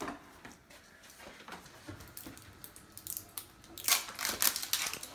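Toy wrapping being handled and opened: faint rustling and a few light clicks, then loud crinkling from about four seconds in.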